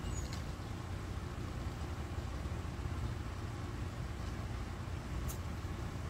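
Steady low background rumble, with a faint click near the start and another near the end, from carburetor parts being handled.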